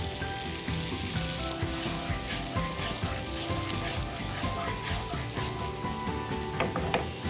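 Food sizzling and frying in a hot pan while being stirred, with a few sharp utensil clicks near the end.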